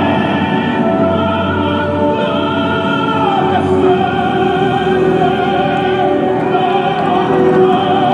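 Operatic aria, a solo voice over an orchestra, singing long held notes with vibrato.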